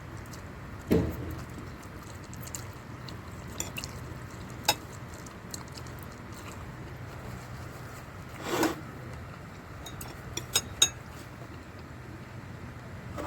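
Eating sounds: a few sharp clinks of utensils against a dish and short wet mouth sounds, spaced a few seconds apart, with a quick cluster of clicks near the end, over a faint steady low hum.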